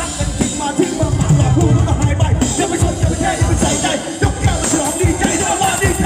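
Live Thai ramwong band music played loud through a PA, with a steady beat.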